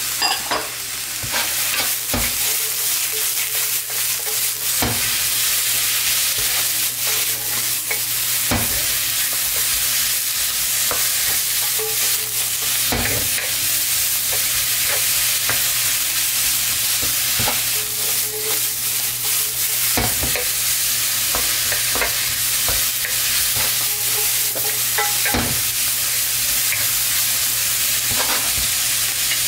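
Sliced mushrooms and green onion sizzling in a hot nonstick wok, stirred and tossed with a wooden spatula. A steady sizzle runs under frequent, irregular scrapes and knocks of the spatula against the pan.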